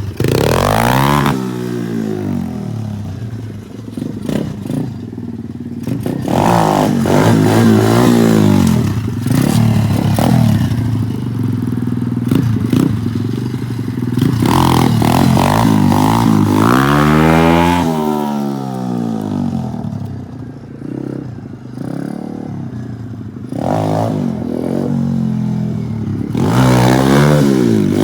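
SSR 125cc dirt bike's single-cylinder four-stroke engine being ridden, its note rising and falling repeatedly as the throttle is opened and eased off, with the biggest rise and fall about two-thirds through.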